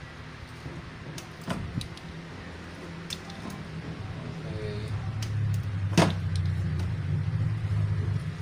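Sharp snips and clicks of hand wire cutters cutting and stripping the insulation off thin control wires, the loudest about six seconds in. A low rumble builds underneath from about halfway.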